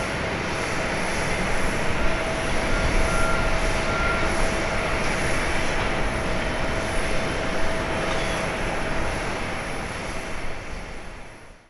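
Airbus A350-900's Rolls-Royce Trent XWB jet engines running at low power as the airliner rolls along after landing: a steady rumble with a faint steady whine, fading out near the end.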